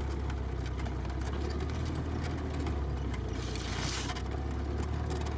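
Off-road vehicle's engine running steadily, heard from inside the cabin while driving along a muddy track, with a brief rushing noise about three and a half seconds in.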